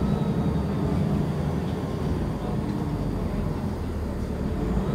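City transit bus engine and road noise heard on board: a steady low drone that eases a little midway and builds again near the end.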